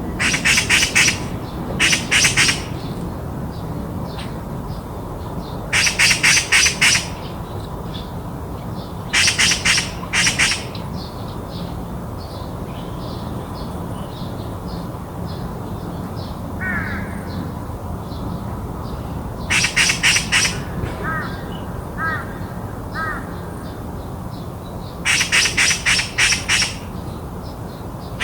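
Oriental magpie chattering: six bouts of harsh, rapid calls, each a quick run of several rasping notes lasting about a second, spaced irregularly. A few soft, short chirps from another small bird come in the middle, over a steady low background hum.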